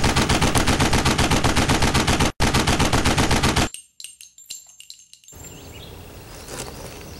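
Long burst of rapid automatic gunfire, the shots evenly spaced at roughly ten a second, with a brief break a little over two seconds in. It cuts off abruptly partway through, leaving a few faint clicks and then a quiet steady background.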